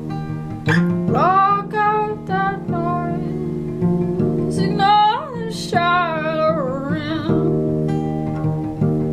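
Acoustic guitar playing steady held chords while a voice sings a sliding melody without clear words from about a second in, fading out near the end.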